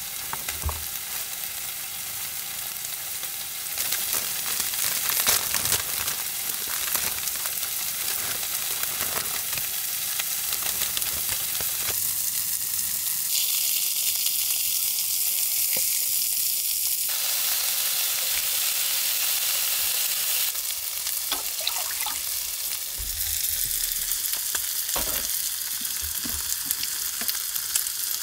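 Fish fillets, which look like salmon, sizzling on foil in a frying pan over a portable gas cassette stove, a steady frying hiss with occasional light clicks. The hiss changes abruptly several times.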